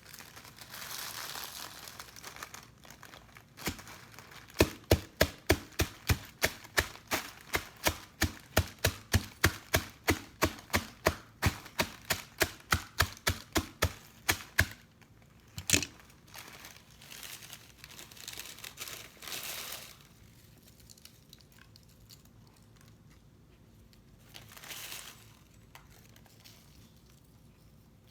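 Rapid, even knocking in the kitchen, about three knocks a second for some ten seconds, like a utensil chopping or pounding on a board, with a few short bursts of rustling wrapper-like crinkling before and after.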